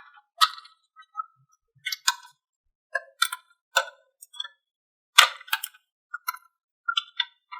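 Marbles clicking and clacking against the pieces of a marble run: about a dozen sharp, irregular clicks, the loudest about five seconds in.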